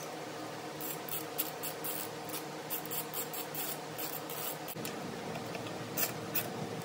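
Hand ratchet clicking in short quick runs as bolts are turned down on an engine's intake, over a faint steady hum.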